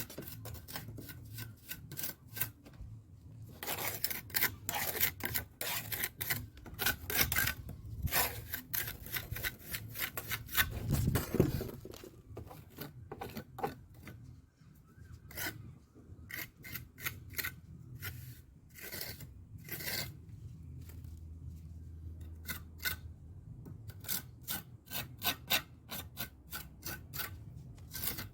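Repeated short scraping and rubbing strokes of a hand tool working mortar along brickwork, irregular in pace, with a louder dull knock about eleven seconds in.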